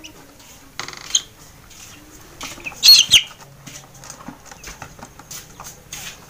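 A hand-held chicken squawks while being dosed with lime-and-salt water by syringe: a short cry about a second in and a loud one about three seconds in, with wing flapping and rustling of feathers between.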